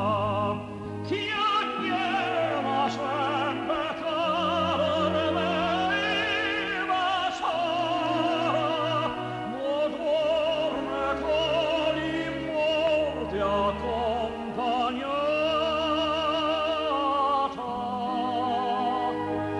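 Operatic singing with a wide vibrato over sustained instrumental accompaniment.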